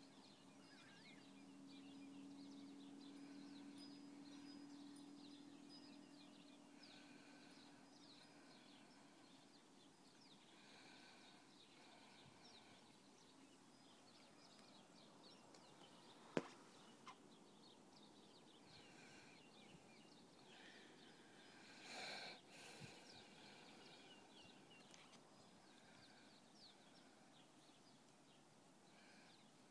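Near silence: a quiet snowy yard with faint, scattered bird chirps and a faint low hum over the first several seconds. A single sharp click sounds about sixteen seconds in, and a brief rustle about twenty-two seconds in.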